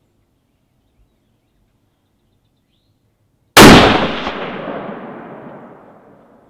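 A single rifle shot from a Springfield Armory Model 2020 bolt-action rifle, very loud, about three and a half seconds in, its echo rolling away and fading over about three seconds.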